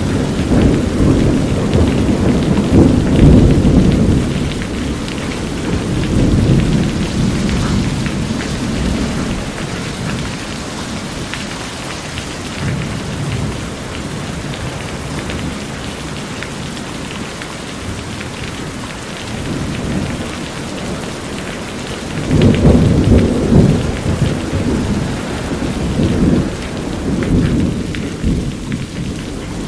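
Steady rain on a corrugated metal roof, with thunder rumbling twice: once through the first few seconds and again starting about 22 seconds in.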